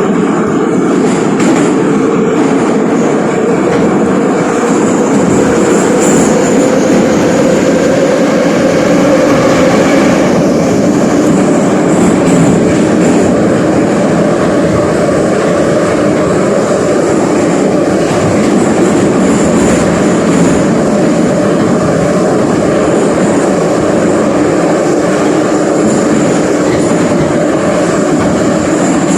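Moscow metro train running through the tunnel, heard from inside the car: dense, steady rolling and track noise with some clatter of the wheels. Under it a motor whine rises slowly over the first ten seconds as the train gathers speed, then holds steady.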